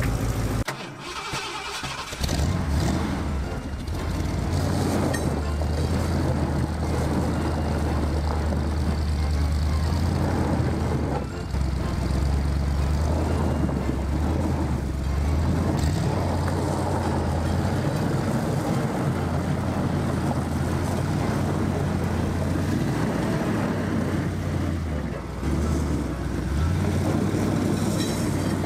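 1979 Ford one-ton truck's engine running as the truck is driven, its note rising and dropping several times with the throttle.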